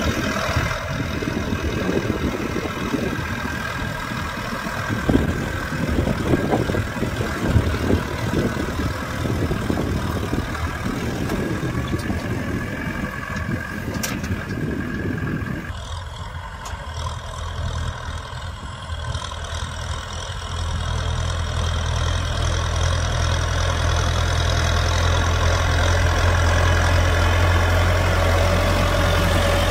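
Kubota M6040 tractor's diesel engine working under load as it pulls a disc plow through stony soil, with an uneven crunching rattle of stones and clods over the first half. About halfway through the sound changes to a steadier, deeper engine drone that grows louder toward the end.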